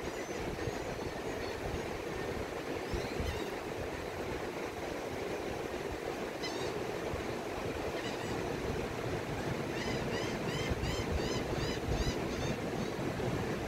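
Gulf surf rolling onto the beach as a steady wash, with wind gusting on the microphone. Near the end a bird calls a quick series of about nine short, hooked notes, with a few single chirps earlier.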